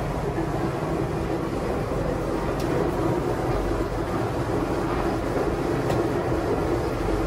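An engine running steadily, a constant low drone with a steady hum that does not rise or fall.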